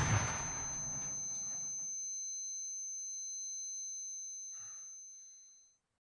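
The tail of a loud crash dies away over the first second or two, leaving a high-pitched steady ringing tone, several pitches sounding together, that fades out about five seconds in, like the ear-ringing sound effect used after an explosion.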